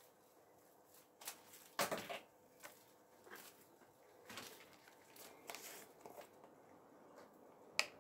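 Faint, scattered handling noises from working by hand: a few light knocks and rustles at irregular intervals, the loudest about two seconds in.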